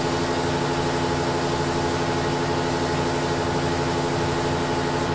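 Weiler Matador lathe running at a steady speed, its motor and gears giving an even hum with several held tones, while abrasive paper is held against the spinning workpiece to polish it.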